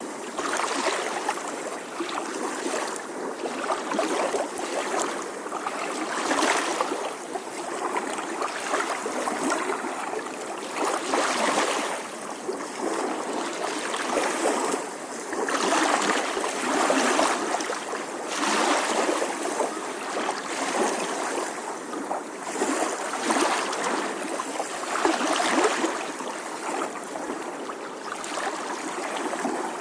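Small ocean waves lapping gently on a shore: a steady wash of water that swells and eases every few seconds as each wave comes in.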